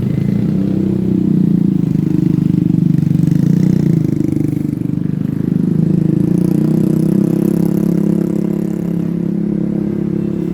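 Tour bus engine running with a steady, low, pulsing rumble. Its pitch shifts slightly about a second in and again around the middle.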